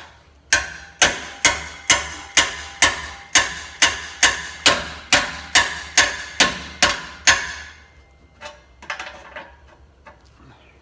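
A hammer striking a steel pipe about sixteen times at roughly two blows a second, each blow ringing briefly, as a crankcase-evac tube stub set into a hole in an exhaust header is knocked over to bend it to fit. A few faint clinks follow near the end.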